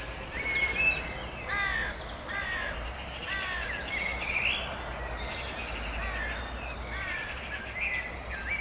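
Birds calling outdoors: a run of short repeated calls that fall in pitch, with some higher chirps in between, over a faint low hum.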